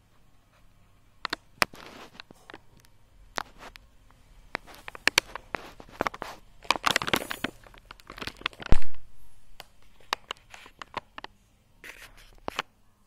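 Handling noise from the recording device: irregular rustling and crinkling with scattered clicks, and one loud knock about nine seconds in.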